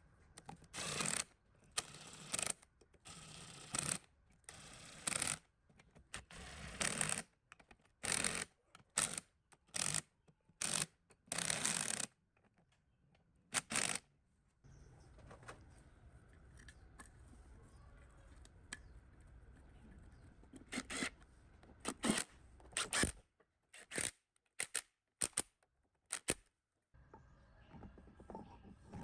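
Workshop hand work on pump parts: a run of short noisy strokes, about one every second, then a faint steady hum with scattered clicks and taps.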